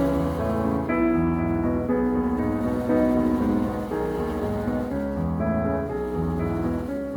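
Calm, slow piano music: held notes that change every second or two over a low bass.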